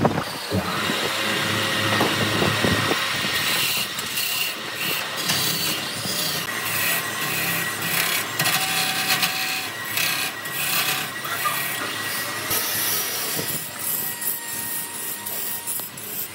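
Wood being worked by a tool: rasping, scraping noise that breaks into quick, irregular strokes a few seconds in.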